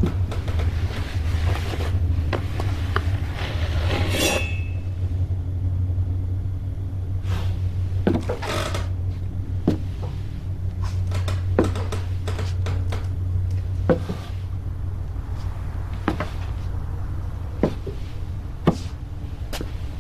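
A steady low hum with scattered small clicks, knocks and clatters, and a brief shimmering metallic rattle about four seconds in.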